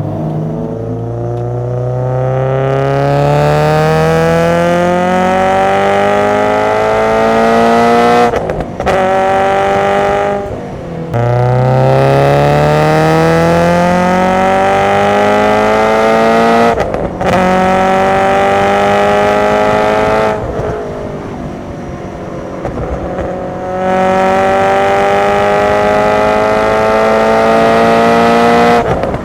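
Subaru BRZ's FA20 flat-four breathing through SARD individual throttle bodies and open intake trumpets, pulling hard through the gears. The engine note climbs steadily in pitch and breaks briefly at each gear change. About two-thirds of the way in it drops in level for a few seconds as the throttle is lifted, then pulls again.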